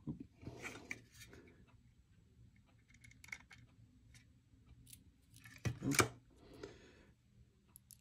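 Small precision screwdriver driving a Torx mounting screw into the side of a 2.5-inch SSD: faint scattered metal clicks and scrapes, with a louder clatter about six seconds in.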